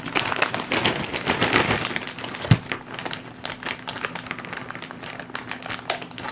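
Plastic packaging crinkling and rustling as it is handled and opened, with many small irregular crackles, and a single low thump about two and a half seconds in.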